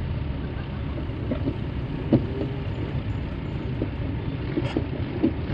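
Motorcycle engine idling: a steady low rumble, with a few faint clicks.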